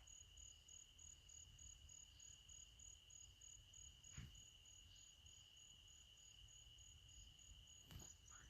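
Faint night insects over near silence: one high steady trill, with a second, higher-pitched insect pulsing evenly. A faint click about four seconds in and another near the end.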